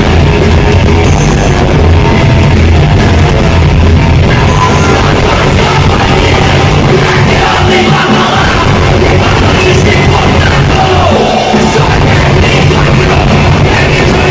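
Live rock band playing loudly, a dense full-band sound with a heavy low end.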